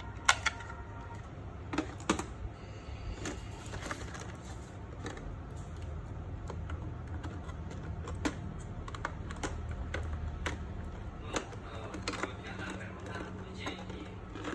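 Irregular hard plastic clicks and taps from handling an RC truck's transmitter and fiddling with the battery pack and compartment on the truck's underside, the loudest click just after the start. A low steady hum runs underneath.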